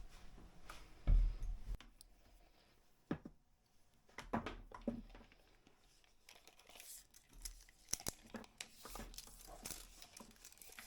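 Handling noises at a workbench: a low thump about a second in, then scattered clicks and knocks and a crinkling rustle in the second half.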